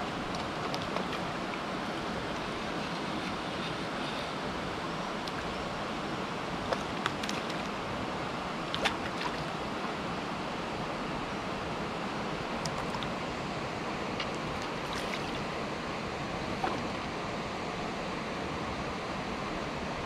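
Steady rush of flowing river water, with a few brief sharp clicks around the middle and once more near the end as a hooked grayling is played and netted.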